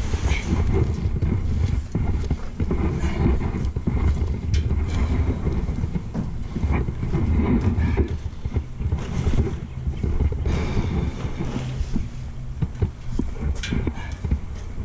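PowerTek stump grinder's petrol engine running steadily, with many short irregular knocks over the engine sound.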